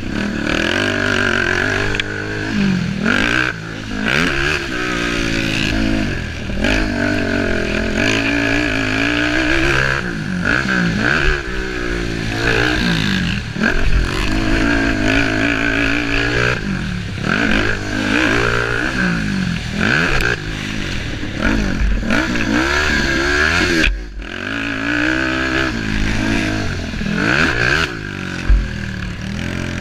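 Racing engines revving hard, their pitch climbing and dropping again over and over as they rev up and back off, with a brief sharp knock near the end.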